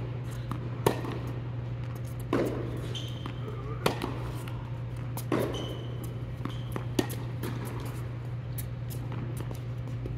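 Tennis singles rally: sharp racket-on-ball strikes and ball bounces about every one and a half seconds, with a few short high squeaks between them, over a steady low hum.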